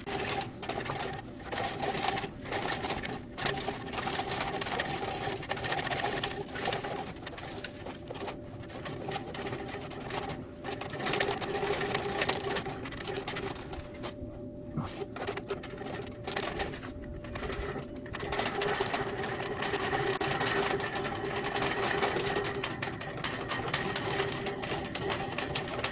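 Steel fish tape rattling and scraping inside a dryer vent duct as it is wiggled back and forth, with the scraping coming and going. Under it, the running clothes dryer's blower keeps up a steady hum as it pushes air through the line.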